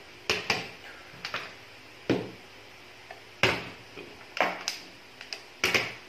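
Partly filled plastic water bottle being flipped and landing on a table: a series of about eight sharp knocks, some in quick pairs as it bounces and tips over.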